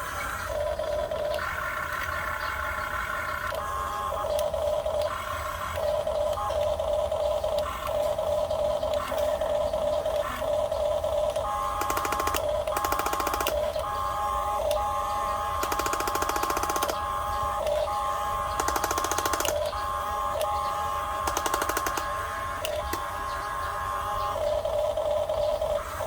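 Huina 1550 RC excavator's small electric motors and plastic gearboxes whining, starting and stopping as the controls are worked, with several harsher bursts of gear rattle in the middle.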